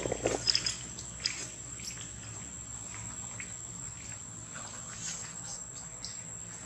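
Steady, high-pitched drone of insects, with a few short, sharp sounds in the first second and a half.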